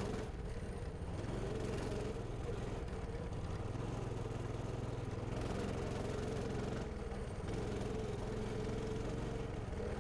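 Coleman Mini Bike 200's small single-cylinder engine running steadily while riding, its note wavering slightly.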